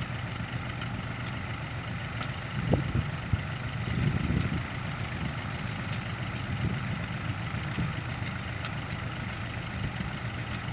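Diesel engine idling steadily, with a few dull thuds around three and four seconds in from a hoe digging the soil around a stuck truck's wheel.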